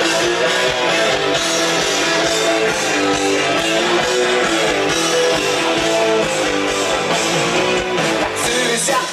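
Live rock band playing through a PA system, led by strummed guitar with a steady beat.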